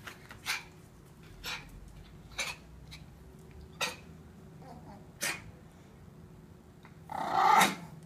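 Dogs sniffing and snorting in short noisy breaths about once a second, then a louder growl lasting nearly a second near the end.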